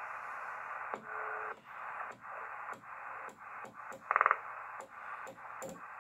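Cobra 148GTL CB radio's receiver hiss from its speaker, broken by a short click at each step as the channel selector is turned up through the channels, about two steps a second. A short, loud buzzing tone cuts in about four seconds in.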